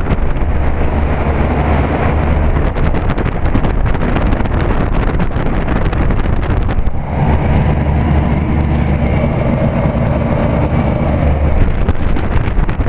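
Old General Electric central air-conditioner condensing unit running: a steady low hum under loud condenser-fan noise and air buffeting, with a brief dip about halfway through. The Climatuff reciprocating compressor is very quiet; most of the noise is the fan and the shakes and rattles of an aging unit.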